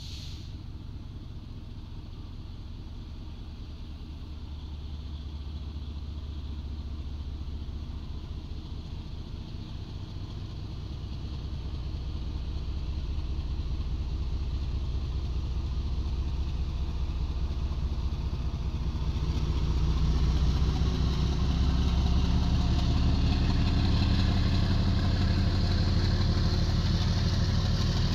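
Diesel locomotive engine running with a low, steady drone that grows louder as it approaches. From about two-thirds of the way in, the rumble and hiss of wheels on the rails join it as the loaded flat wagons roll past.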